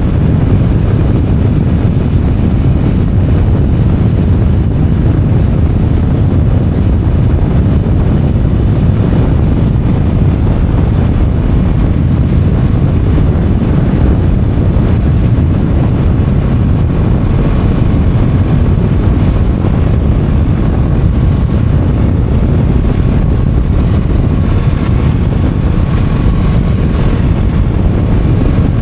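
Motorcycle riding steadily along a road, its engine and tyres blended into a loud, even rumble with wind buffeting the microphone. A faint steady whine comes in about halfway through.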